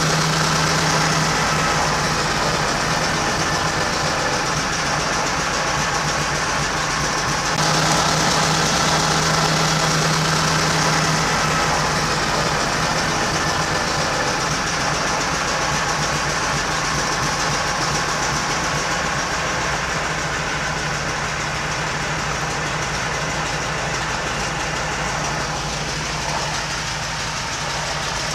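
Noorduyn Norseman's single radial engine running steadily, heard from on board the aircraft.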